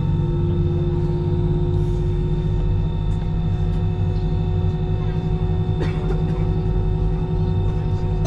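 Airliner cabin hum heard from a window seat: a steady low rumble with a constant whine from the jet engines and air system as the plane moves slowly from the gate. A short click about six seconds in.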